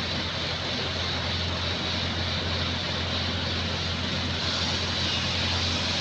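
A large engine running steadily with a constant low hum, with no change in speed.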